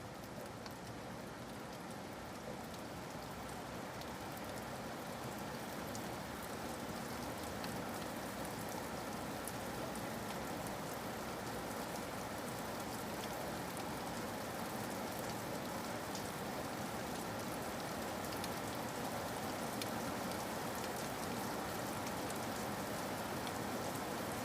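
Steady rain falling, an even hiss with scattered sharp drop ticks, slowly growing louder.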